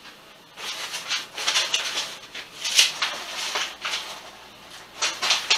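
Rustling and crinkling of a cut piece of stick-on backsplash paper being handled and pressed onto the wall, in several short bursts.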